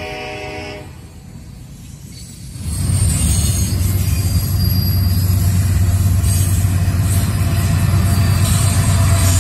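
A freight train's air horn sounds a steady multi-note chord that cuts off about a second in. After a quieter moment, the close, steady low rumble of the freight train's cars rolling past begins a little under three seconds in and keeps up.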